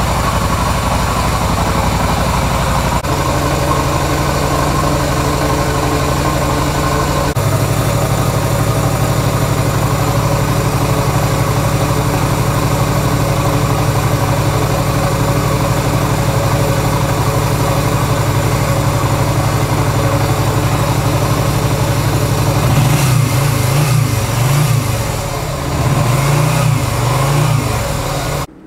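Yamaha Virago 250's air-cooled V-twin engine idling steadily, then blipped on the throttle a few times near the end, the revs rising and falling. The sound cuts off suddenly at the very end.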